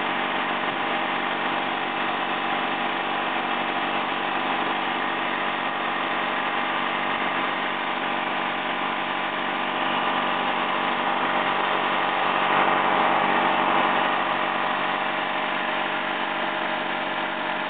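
Twin-cylinder 18 HP Briggs & Stratton gasoline engine running steadily as it drives the chiller's automotive-type refrigeration compressor and belt-driven water pump, a little louder about twelve seconds in.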